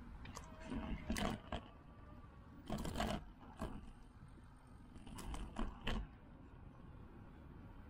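Bicycle riding noise: a steady low rumble of wind and tyres, with a run of sharp clacks and rattles between about one and six seconds in, as the bike jolts over bumps.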